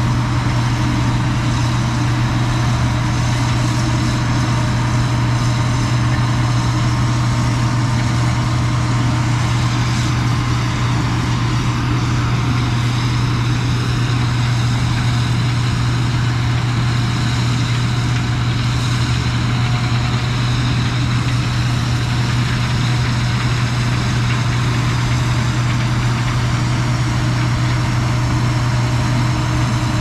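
An engine idling steadily with a constant low hum that does not rise or fall.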